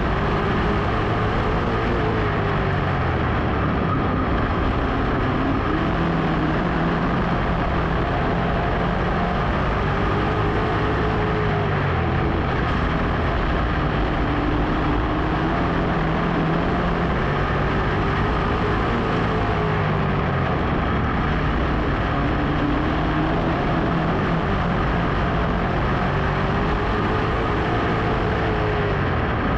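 Dirt modified race car's V8 engine at racing speed, heard on board, its revs rising on the straights and falling into the turns about every seven seconds, over steady wind and road noise.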